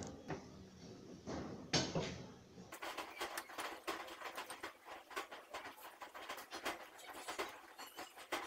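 Chopsticks and a metal fork clicking and scraping against a ceramic plate while cooked instant noodles are tossed and lifted: a quick, uneven run of small clicks from about three seconds in, after a couple of louder knocks early on.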